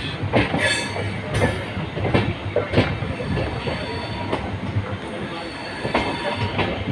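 Passenger train coaches rolling slowly over points and rail joints, wheels clattering at irregular intervals over a steady low rumble, with a brief high wheel squeal about a second in.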